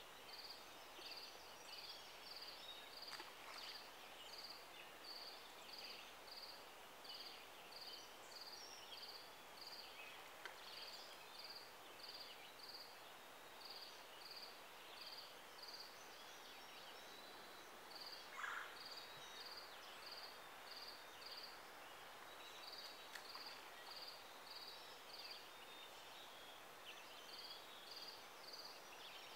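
Faint outdoor woodland ambience: a run of short, high chirps repeating about twice a second with brief pauses, over a soft background hiss. Scattered thin bird calls come and go, with one brief louder call about eighteen seconds in.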